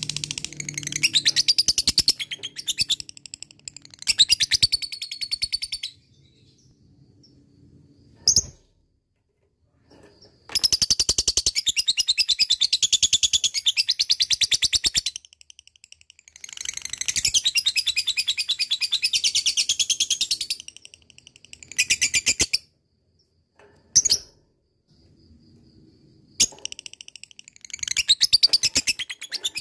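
Lovebird singing its long 'ngekek' chatter: runs of very fast, high, trilling notes, each lasting several seconds, broken by short pauses and a few brief single bursts.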